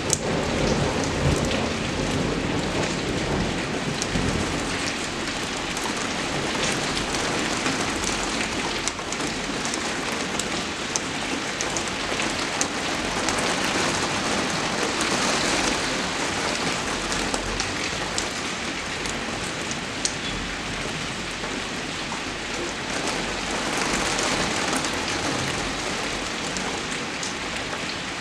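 Steady rain falling on a surface, a dense even hiss with many sharp drop ticks through it. A low rumble swells in the first couple of seconds.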